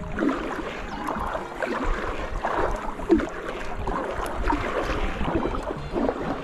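Kayak paddle dipping and splashing in river water, in uneven strokes about once a second, with a sharper splash about three seconds in.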